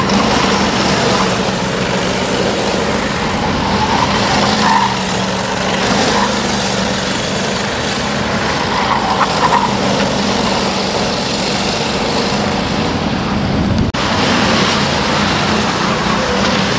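Racing kart engines running as karts pass on a kart track, loud and steady throughout, with a short break about 14 seconds in.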